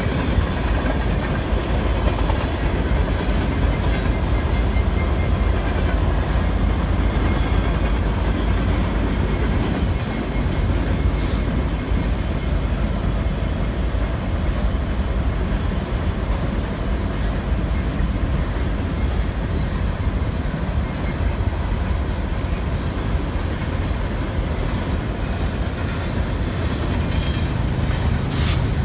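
Union Pacific freight train passing close by: its two diesel locomotives, an SD59MX and an SD70AH, go by with a steady deep rumble, then boxcars and tank cars roll past on the rails. A short high-pitched sound cuts in about 11 seconds in and again near the end.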